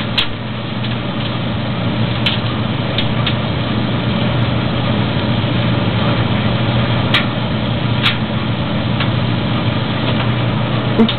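Maytag DG608 gas dryer running with its burner lit: a steady hum of the drum and blower motor under the gas flame, with a few scattered sharp ticks.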